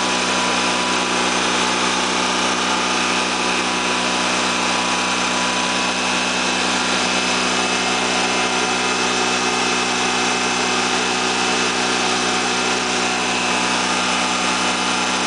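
Freshly rebuilt, liquid-cooled Honda EV6010 generator engine running steadily at constant speed on its first break-in run, a level hum made of several fixed tones.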